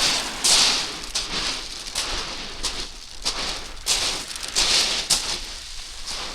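Footsteps crunching on a shingle beach: a string of gritty pebble crunches at about a walking pace.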